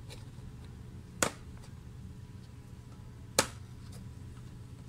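Plastic clips of a car instrument cluster housing snapping loose as the housing is pried apart: two sharp clicks about two seconds apart, with a few fainter ticks, over a steady low hum.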